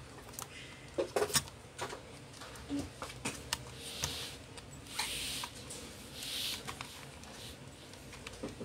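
Small clicks, taps and scratching of fingers working ribbon-cable connectors on an open laptop's motherboard, with a few short rubbing hisses in the middle.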